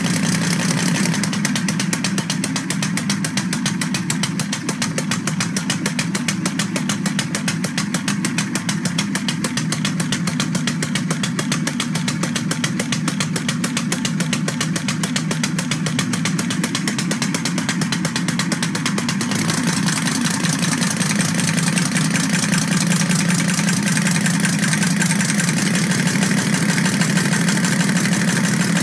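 Homemade multi-cylinder compressed-air engine with a camshaft-driven valve train, running steadily on the workbench. Its rapid exhaust puffs of air and valve clatter come as a fast, even rhythm. The running grows a little brighter and louder about two-thirds of the way through.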